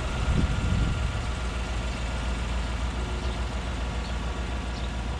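Chevy Silverado 1500's 5.3-litre V8 running steadily at low speed as the pickup creeps slowly along the driveway, just after being refilled with fresh oil.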